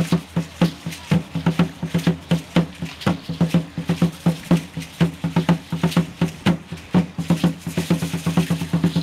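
Aztec ceremonial drum (huehuetl) beaten in a steady, fast rhythm, about three to four beats a second, each beat with a low booming tone.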